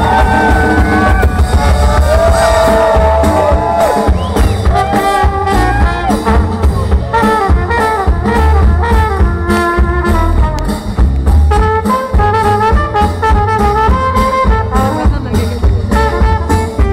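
Live band playing: a trumpet carries a melody over a drum kit and a double bass, with a heavy low end.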